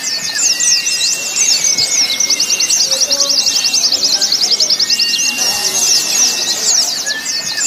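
Many white-eyes (pleci) singing at once at a songbird contest: a dense, unbroken chatter of fast, high twittering. Longer level whistled notes are mixed in at a lower pitch.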